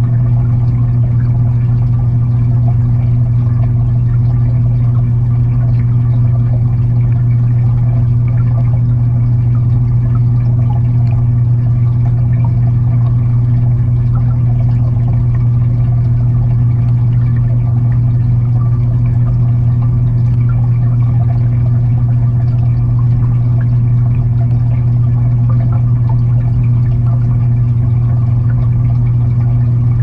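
Aquarium filter pump heard underwater inside the tank: a steady low hum with the noise of moving water over it.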